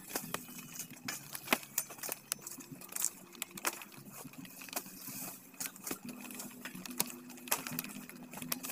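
Irregular snapping, crackling and knocking of sugarcane stalks and dry cane leaves being cut with a machete and pulled apart, the sharpest knock about one and a half seconds in.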